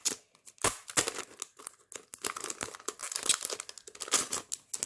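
A small sealed packet being torn open by hand, its wrapping crinkling and ripping in quick irregular bursts that stop right at the end.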